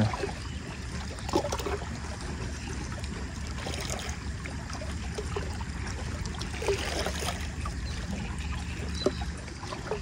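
Ultralight spinning reel being cranked slowly on a retrieve: a soft steady whir with a few faint clicks, over faint water sounds.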